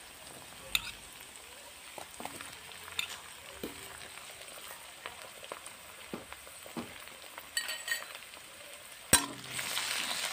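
Onions, green chillies and chopped tomato sizzling faintly in hot oil in an aluminium kadai, with scattered soft clicks as tomato pieces drop in. About nine seconds in, a metal spoon clinks against the pan and the sizzling grows louder as stirring begins.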